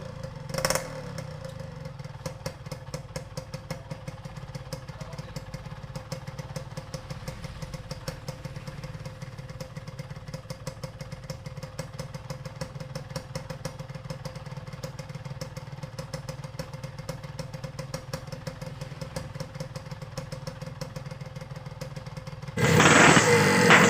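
Yamaha RX-King's single-cylinder two-stroke engine idling steadily, with a rapid even pulse, a couple of sharp pops right at the start. Near the end the sound suddenly becomes much louder.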